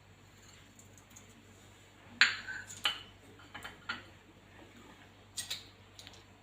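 A few separate clinks and knocks of kitchenware, dishes or utensils being handled, the loudest about two seconds in.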